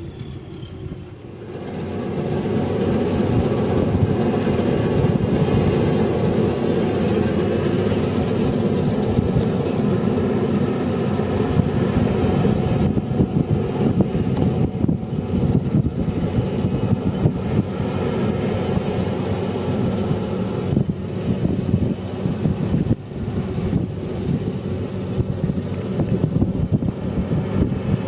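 Punni Grain Cruiser combine harvester at work in wheat, its engine and threshing machinery running with a steady, dense mechanical noise that grows louder over the first couple of seconds and then holds.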